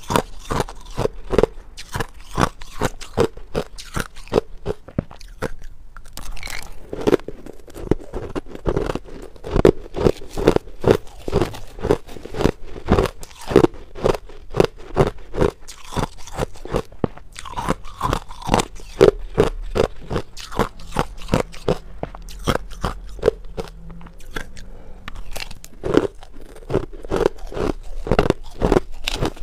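Crushed ice being bitten and chewed, picked up close by a lapel microphone: a rapid, continuous run of sharp crunches.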